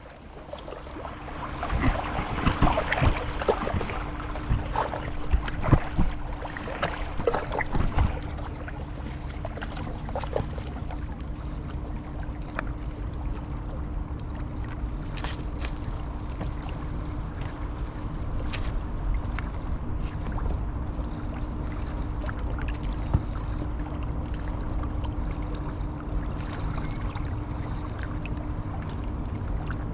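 Waikato River water lapping and splashing, with a busy spell of splashes in the first several seconds that then settles into occasional ones, over a steady low rumble and faint hum.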